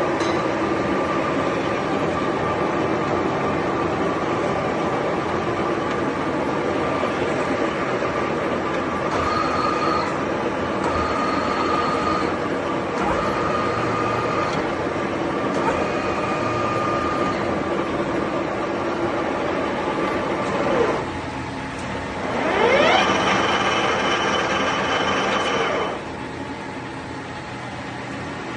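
A 1M63B screw-cutting lathe's headstock gearbox and spindle running, with a steady gear whine. Several times the whine shifts higher for a second or two. Near the end a rising whine builds for a few seconds, then the machine settles to a quieter run.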